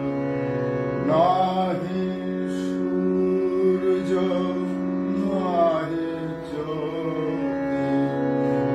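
A man singing with his own harmonium accompaniment: the harmonium holds steady reed chords throughout, and his voice comes in with long sung phrases about a second in and again around four and five and a half seconds.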